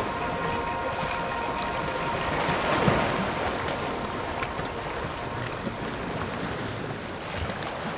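Waves washing on a sandy shore with some wind, a steady rush that swells about three seconds in. The last held notes of background music fade out in the first couple of seconds.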